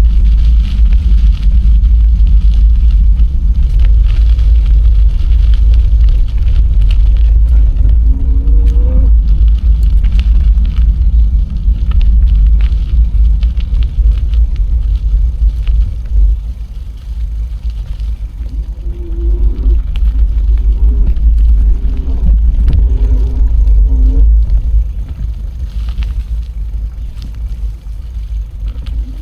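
Wind buffeting the microphone of a camera carried on a moving bicycle: a loud, steady low rumble that eases off twice, mixed with the bike's riding noise.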